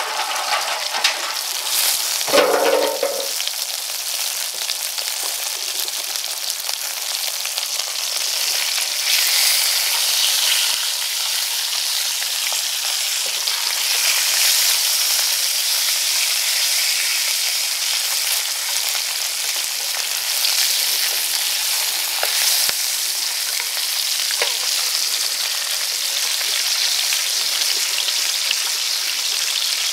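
Rat meat sizzling steadily in hot oil in a frying pan, with occasional small clicks as the pieces are turned with chopsticks. There is a brief clatter about two seconds in.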